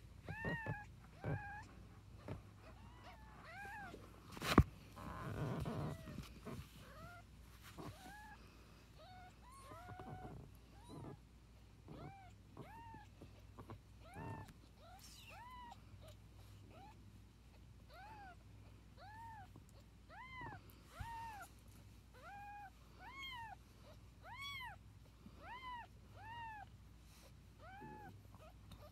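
Young kittens mewing over and over, short high calls that each rise and fall in pitch, coming about one to two a second. A sharp knock about four and a half seconds in, followed by a couple of seconds of rustling handling noise.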